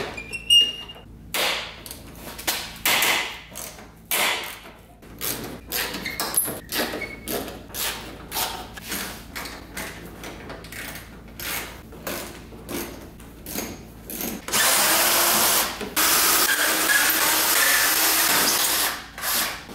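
Cordless drill-driver backing out the screws that hold a car's plastic front bumper: short clicks and knocks of handling, then the drill running steadily for about four seconds near the end, with a brief break partway through.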